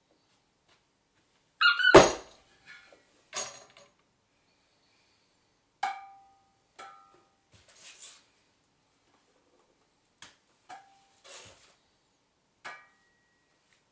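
Sparse, scattered sounds of small hand percussion and objects played in a contemporary piece: a loud squeak about two seconds in, then isolated taps and short metallic pings with brief ringing, separated by long silences.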